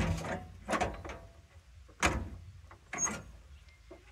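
Four sharp metallic clunks with short ringing tails, a few seconds apart, from the cab window frame or latch of an old John Deere excavator being worked by hand.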